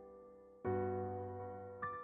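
Slow, soft piano background music. A chord is struck about half a second in and rings as it fades, and another chord comes in near the end.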